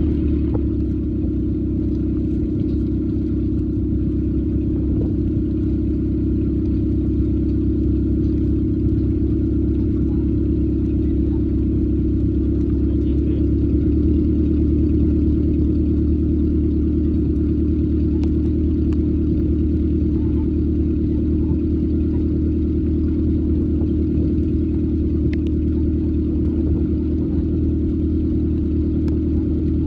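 A vehicle's engine running steadily with a low, even rumble that holds the same pitch throughout.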